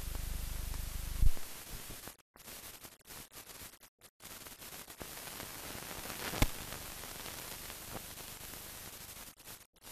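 Hiss and static from a silent film track, with a low hum that cuts off with a sharp pop about a second in. The hiss then runs on with brief dropouts and another pop a little past the middle.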